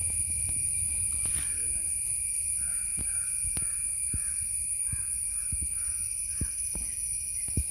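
Outdoor forest ambience: a steady high-pitched insect drone, with a bird calling repeatedly for a few seconds in the middle. Scattered faint knocks and a low rumble sit underneath.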